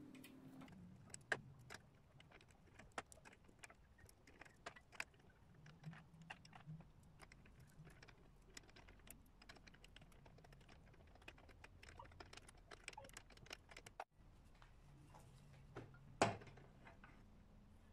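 Scattered small metallic clicks and clinks as a lathe chuck is handled and fitted at the lathe's headstock, then one louder knock near the end as a wooden blank is set into the lathe.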